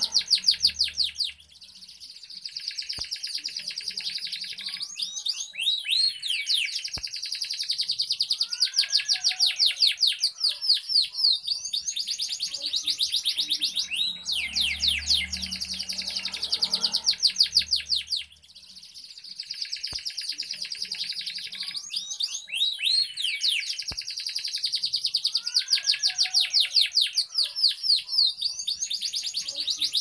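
Domestic canary singing continuously: long phrases of fast, high trills and rolls. There are brief breaks about a second and a half in and again around eighteen seconds.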